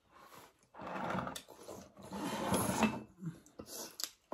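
A person's voice making rough, throaty non-speech noises in two bursts, each about a second long.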